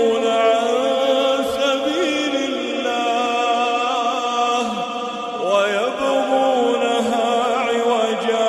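A man reciting the Quran in a melodic chanting style, drawing out long held vowels with ornamented turns of pitch.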